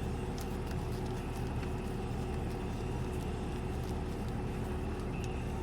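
Steady low mechanical hum with a constant tone, with a few faint light clicks.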